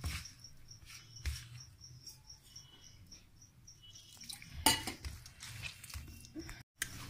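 Hands rubbing and mixing crumbly flour dough in a steel plate, with a few clinks of steel and glass bangles and a louder clatter of the steel water tumbler against the plate about two-thirds through. A high, even chirping repeats about four times a second over the first few seconds.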